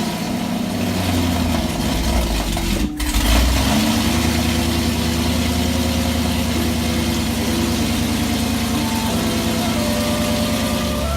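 Gen 6 Chevrolet Camaro engine, with a newly fitted Roto-Fab cold air intake, running just after start-up. It runs unevenly at first, breaks off briefly about three seconds in, then settles into a steady idle.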